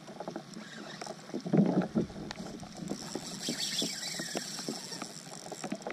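Water lapping against a fishing kayak with light, irregular knocks and ticks from the boat and tackle while a hooked fish is being fought on rod and reel. A short louder rush of noise comes about a second and a half in.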